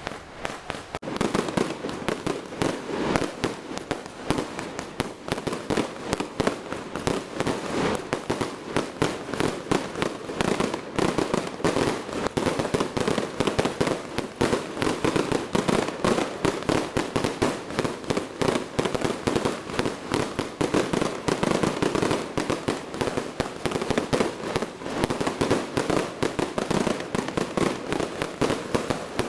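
Fireworks and firecrackers going off in rapid succession: a dense, unbroken crackle of many bangs a second that starts about a second in.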